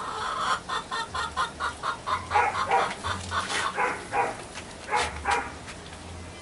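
Chickens clucking: a quick run of short clucks at about four to five a second, then a few louder, longer calls.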